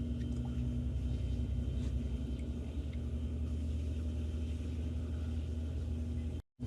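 Steady low background hum with a constant tone, broken by a sudden dropout to silence for a split second near the end.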